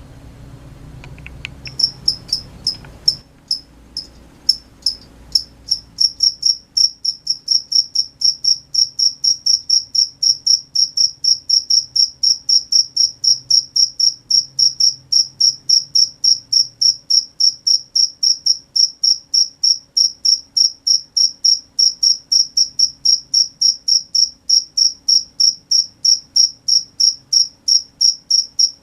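A single cricket chirping loud and close, clear high chirps at about three a second. It starts haltingly about two seconds in, over a low rustling, and settles into a steady, even rhythm.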